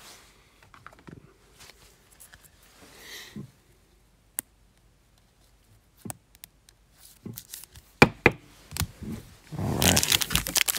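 Trading cards and plastic sleeves being handled: soft rustles and a few sharp plastic clicks as a card is slid into a penny sleeve and top loader. Near the end, loud crinkling of a card pack's plastic wrapper being picked up and handled.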